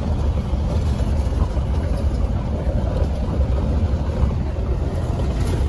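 Steady low rumble of a truck driving slowly across a gravel lot, heard from inside the cab: engine and tyre noise, with no sudden events.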